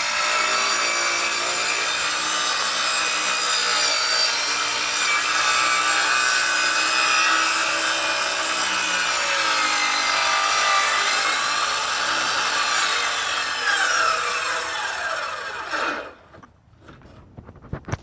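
Power saw cutting through wood steadily for about sixteen seconds, its pitch sliding down as the blade winds down and stops near the end.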